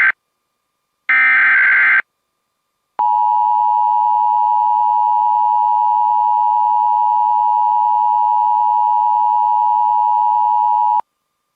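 Emergency Alert System SAME header: a burst of shrill data tones lasting about a second. About a second later comes the EAS two-tone attention signal (853 and 960 Hz together), one steady, harsh tone held for about eight seconds and cut off sharply, announcing the alert.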